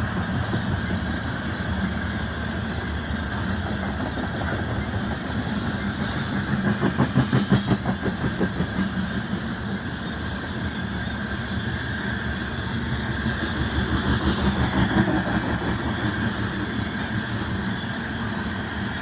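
Loaded coal train rolling past: the steady rumble of its cars, with a rhythmic clickety-clack of wheels over rail joints that swells for a couple of seconds about seven seconds in.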